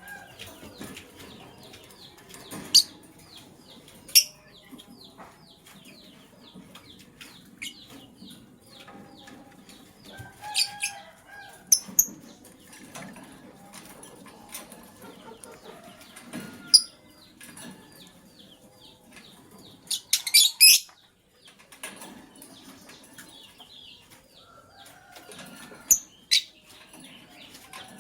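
Lovebirds chattering, a steady run of quick high chirps over wings fluttering and rustling. Loud, sharp shrieks cut in every few seconds, with a short burst of them about two-thirds of the way through.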